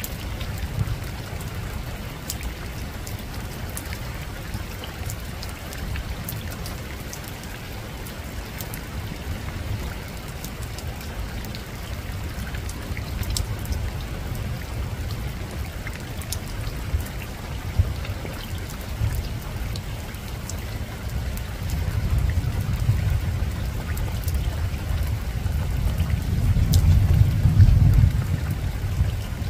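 Steady rain falling on a rooftop, with scattered drops ticking sharply. A low rumble of distant thunder swells over the last few seconds.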